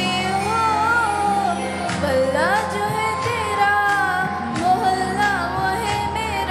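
A young girl singing a solo into a microphone, amplified through a PA, over instrumental accompaniment; her sustained notes bend and glide in pitch over steady low accompanying chords.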